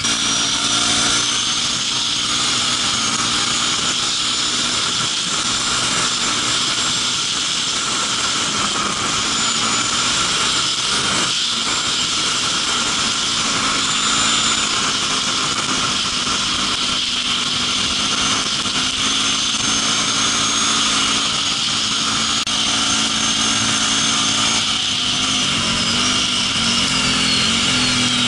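ATV engine running steadily as the quad is ridden, its hum holding an even pitch under a constant rushing noise of wind and the ride.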